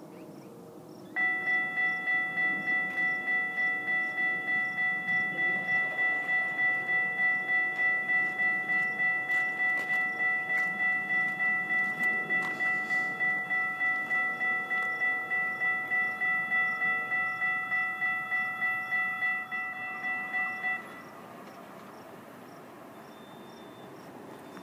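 Railroad crossing warning bell ringing rapidly, about three strikes a second, while the crossing lights flash and the gate arms lower. It starts about a second in and stops around 21 seconds in, once the gates are down.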